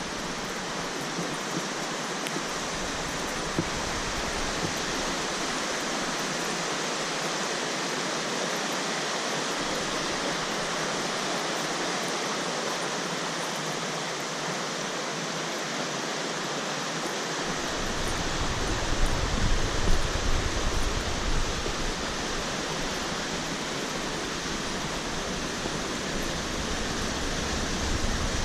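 Steady rushing noise of running water. About two-thirds of the way through, low gusts of wind buffet the microphone.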